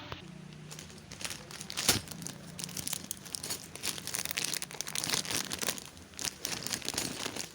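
Plastic packaging crinkling as it is handled, a dense run of irregular crackles with one sharper, louder crackle about two seconds in.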